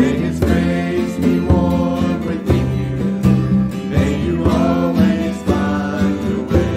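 Live church praise band playing a gentle song with acoustic guitars, electric bass and congas, with voices singing over it. A steady beat runs under sustained bass notes.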